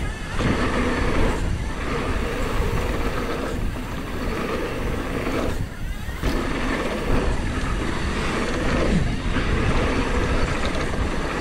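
Mountain bike rolling fast down a packed-dirt trail: tyres rumbling over dirt and loose gravel with wind buffeting the camera microphone, easing briefly every couple of seconds.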